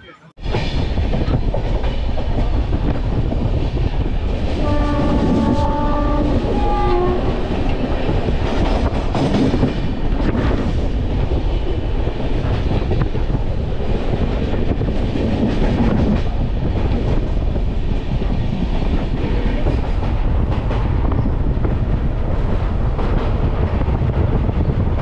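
A train running on the rails, with loud, steady noise that starts abruptly at a cut. About five seconds in, a train horn sounds for some two and a half seconds, its pitch bending down as it ends.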